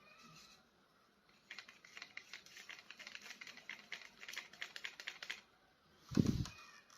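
Rapid small clicks and crackles of plastic toy packaging being handled and opened, over about four seconds, followed near the end by one low thump.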